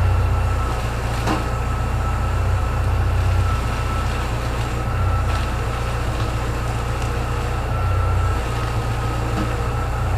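Chevrolet Niva engine idling with a steady low hum and a thin whine, while the steering is worked and three faint sharp clicks come from under the car, about a second, five seconds and nine seconds in. The click is the fault being hunted; the mechanics suspect the tin underbody guard or a loose bolt on it.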